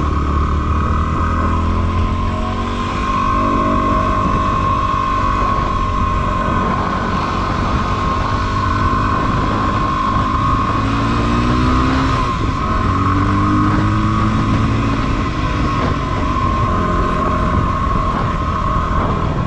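Yamaha WR250R's 250 cc single-cylinder four-stroke engine running steadily under way on a dirt track, its revs rising and falling slightly a little past the middle.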